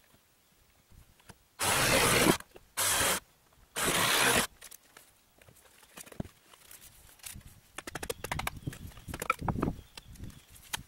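Boards from a camper's wooden frame being pulled loose and handled: three harsh scraping strokes about a second apart in the first few seconds, then scattered knocks and clatters of wood.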